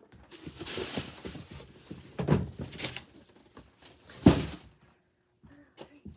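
Boxed toy packaging being handled and rustled, with a sharp knock about four seconds in as something is set down or bumped.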